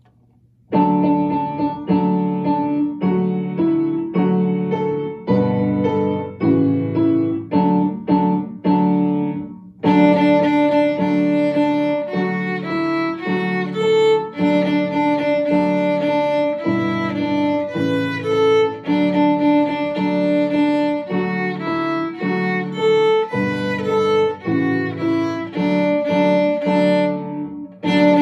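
A piano accompaniment plays an intro of evenly spaced notes for about nine seconds. About ten seconds in, a violin joins and bows a simple melody on D, E, F sharp, A and B over the piano.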